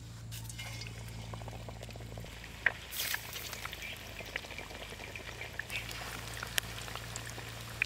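Batter-coated egg halves deep-frying in hot oil in an iron wok: a sizzle with scattered sharp crackles and pops, the loudest spitting burst about three seconds in, over a steady low hum.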